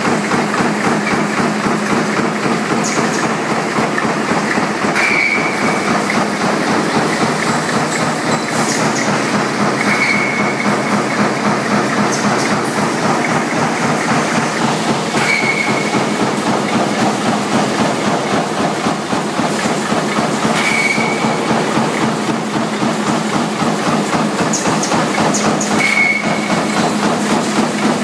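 A stator and rotor lamination stamping line running: a punch press striking in a rapid, even rhythm as a gear feeder and S-type straightener draw steel strip from the coil. A short high squeal comes about every five seconds.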